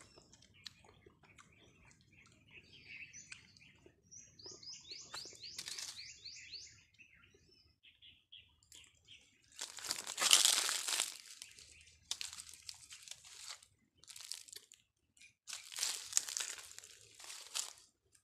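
Several bursts of crinkly rustling from something being handled close to the microphone, the loudest about ten seconds in. Earlier, a bird gives a quick run of short chirps.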